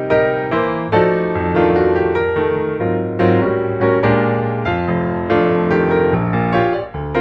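Background piano music: a gentle melody of struck notes over low held bass notes, about two notes a second.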